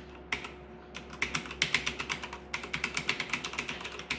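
Typing on an ASUS ROG Strix Scope TKL mechanical keyboard with Cherry MX switches: a few separate keystrokes, then rapid keystrokes from about a second in, with a short pause partway through.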